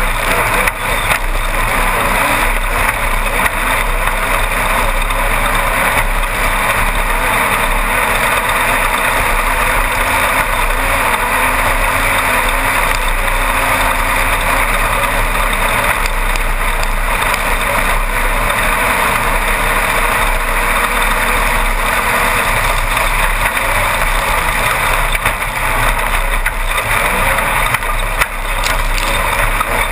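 Class 1-1600 off-road race buggy at speed, heard from inside the car: its air-cooled 1600 cc Volkswagen engine running hard under a loud, steady rush of noise, without let-up.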